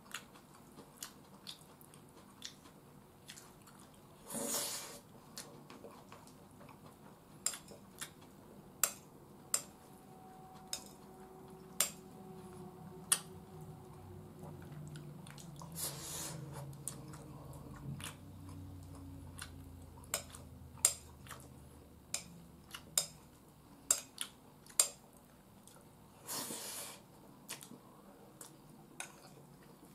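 A person eating curry and rice with a metal spoon from a ceramic bowl: sharp clicks of the spoon against the bowl every second or two, with chewing in between and three short louder bursts of noise spread through.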